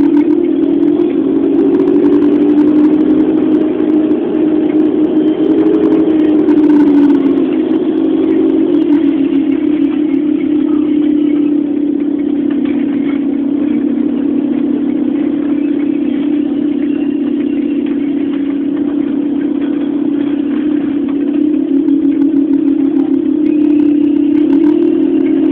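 Volvo Olympian double-decker bus's diesel engine heard from on board while driving. The engine note rises in the first couple of seconds, drops about six to eight seconds in, runs steady for a long stretch, then climbs again near the end.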